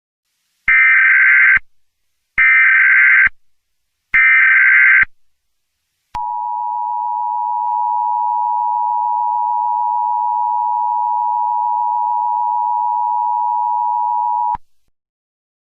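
Emergency Alert System tones: three roughly one-second bursts of screeching SAME data header, followed by the EAS two-tone attention signal, which holds steady for about eight seconds and then cuts off.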